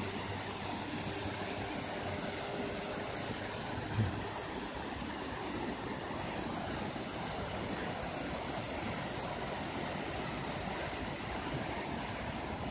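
Steady rushing of a waterfall spilling down a rocky cliff and over loose scree, with a brief low thump about four seconds in.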